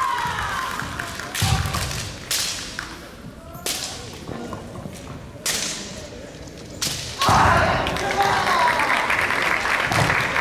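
Bamboo shinai striking sharply in a kendo bout, about five cracks spread over the first seven seconds. From about seven seconds in, the fencers give loud, drawn-out kiai shouts.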